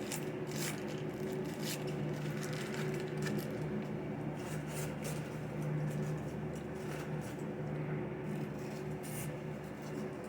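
Scattered clicks and rustles from handling a takeout box and food, over a steady low hum.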